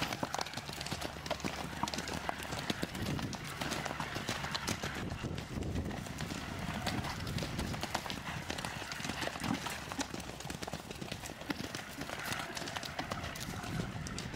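Horses' hooves beating on the ground as several ridden horses canter past in turn across a stubble field, an irregular run of hoofbeats.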